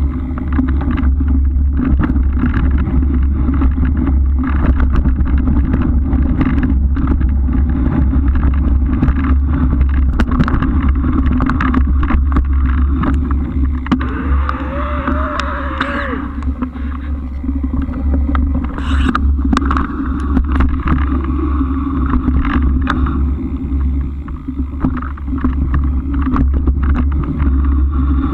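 Steady wind buffeting and rolling noise on a camera mounted on a moving bike, with scattered small rattles and clicks. About halfway through, a short tone rises and falls.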